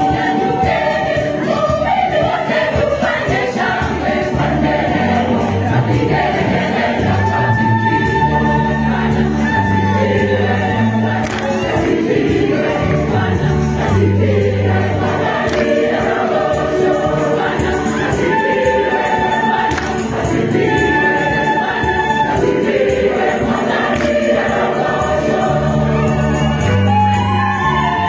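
Gospel music: a choir singing over a moving bass line and percussion, played without a break.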